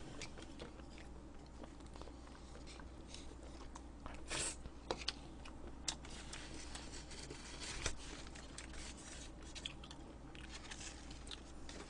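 Faint chewing, with scattered small clicks of chopsticks against plastic food containers and a brief rustle a little over four seconds in.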